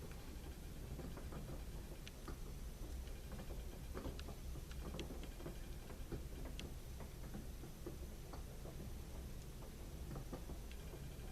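Small plastic toy being handled: irregular light clicks and taps of plastic, over a low steady hum.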